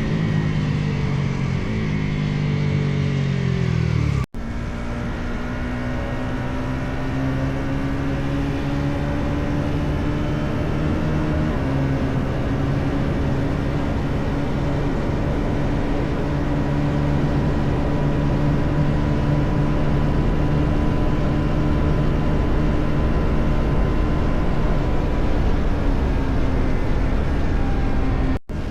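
Bajaj Pulsar NS400Z's single-cylinder engine under way: revs falling for the first four seconds, then holding steady at cruising speed with small changes, over a rushing wind and road noise. The sound cuts out abruptly for an instant about four seconds in and again near the end.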